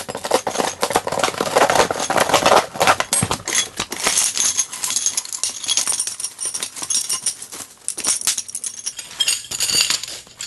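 Metal shoe-rack poles and parts clinking and rattling against one another as they are unpacked and laid out: a dense run of small knocks and jingling.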